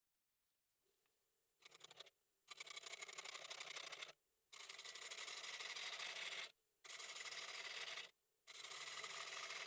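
Wood lathe running with a faint steady hum while a turning tool cuts the spinning red oak bowl blank, giving five passes of hissing, each one to two seconds long, with short breaks between.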